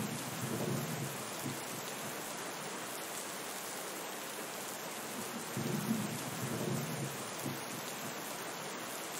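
Steady rain with rolling thunder: a low rumble dying away in the first second and a half, and another about five and a half seconds in that rolls for about two seconds.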